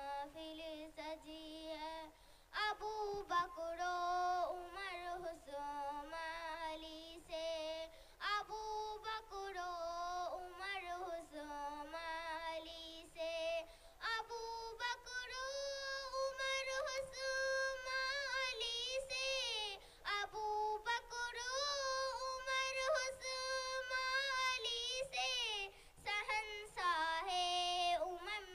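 A young girl singing a naat, an Urdu devotional poem, unaccompanied into a microphone, with long held notes and a wavering vibrato.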